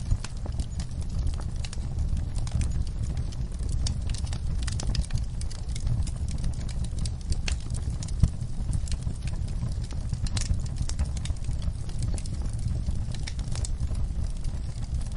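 Wood fire burning in a fireplace: a steady low rumble of flame with irregular crackles and pops, one sharper pop about eight seconds in.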